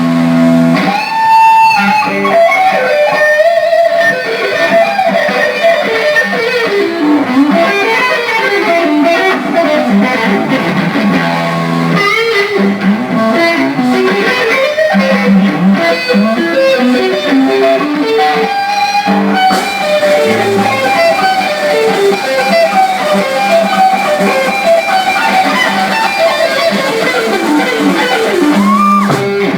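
Live rock band playing an instrumental cover, an electric guitar carrying a fast lead melody over bass guitar.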